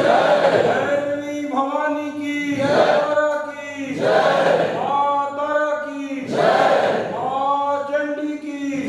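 A group of voices chanting a Hindu devotional hymn together in unison, in repeated held phrases of about a second and a half each with short breaks between them.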